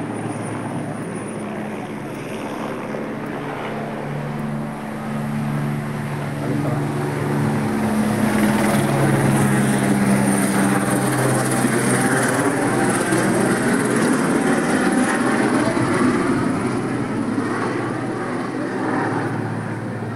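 Low-flying aircraft passing overhead: a steady engine drone that builds to its loudest about halfway through, then slowly fades.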